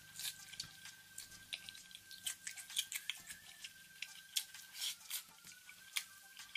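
Close-miked chewing and mouth sounds of a person eating: irregular short clicks and smacks, several a second.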